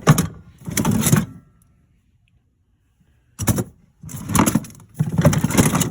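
Metal hand tools clattering and knocking as they are lifted out of a tool box and set down: a rattle at the start, a sharp knock past the middle, then a longer clatter to the end.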